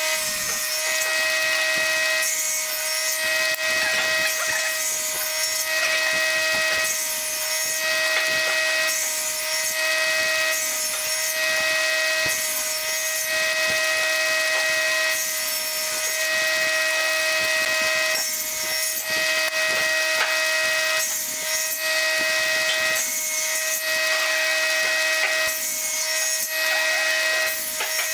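Bench table saw running with a steady whine, crosscutting short wooden blocks one after another, each pass through the blade adding a rasping cut noise about every two seconds.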